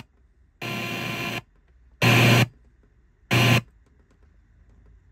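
Sony FH-707R's FM tuner being stepped down the dial between stations, giving three short bursts of static hiss through its speakers with near-quiet gaps between them.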